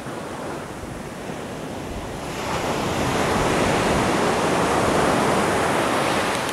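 Ocean surf washing onto a sandy beach, mixed with wind on the microphone; the rush grows louder about two seconds in and holds.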